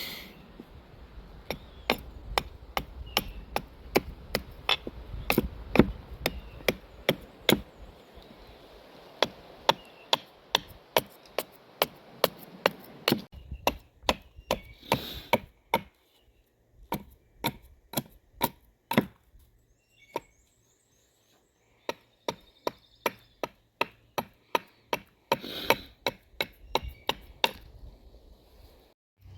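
Gränsfors Bruks Carpenter's Axe hewing a wooden spoon blank: sharp chopping strikes of the blade into wood, about two a second, in runs with short pauses between them.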